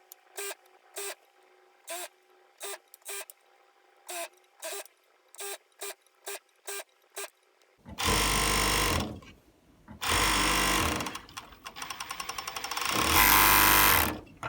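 Four-thread overlock sewing machine running in four short bursts in the second half, stitching a tricot fabric braid. Before it starts there are light, regular clicks about twice a second.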